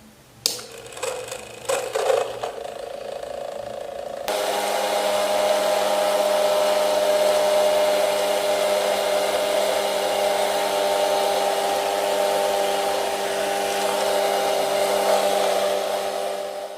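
A few handling knocks and clicks, then a small DC motor spinning a fan starts abruptly about four seconds in and runs steadily with a whine and a rush of air: the homemade plastic-bottle vacuum cleaner switched on and running.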